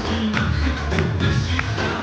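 Dance music playing loud, with a heavy bass line.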